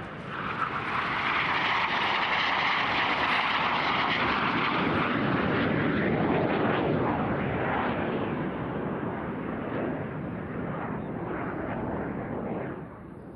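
Jet engine noise of two Aermacchi MB-339 jet trainers flying past in a display pass: a loud rushing roar that builds within the first second, shifts lower in pitch after the middle, and drops off sharply near the end.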